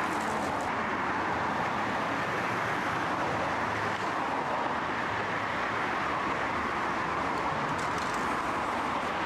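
Steady traffic noise, an even continuous rush with no breaks.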